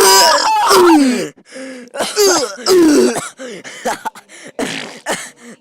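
A man's voice making mouth sound effects for a fight scene: a rapid string of short grunts, hisses and cries, many sliding down in pitch, with brief gaps between them.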